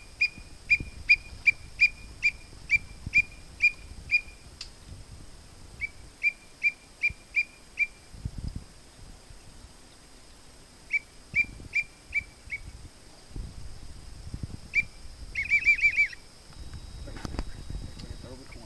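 Teal whistle call blown in runs of short, high, evenly spaced peeps, about three a second, to call teal back in. A quick warbling trill comes near the end, with a few low rumbles between the runs.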